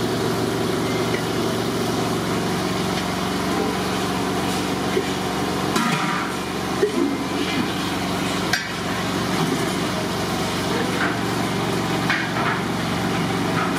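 A steady mechanical drone throughout, with a few sharp metal clinks as a ladle and steel bucket knock against the large aluminium cooking pot while oil is ladled in.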